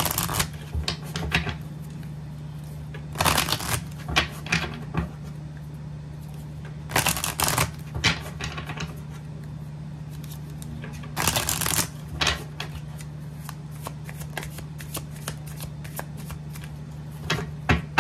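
A deck of tarot cards being riffle-shuffled by hand: four crackling riffles about four seconds apart, with lighter taps and flicks of the cards between them and a short shuffle near the end.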